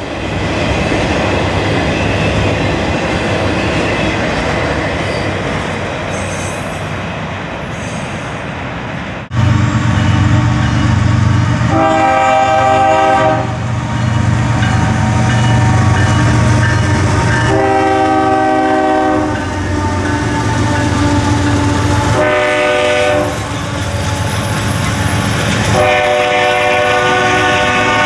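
A long autorack freight train rolls past with a steady rumble of wheels on rail. After a sudden change, two CSX diesel locomotives hauling a coal train approach with their engines running and sound their multi-tone horn four times: long, long, short, long, the grade-crossing warning signal.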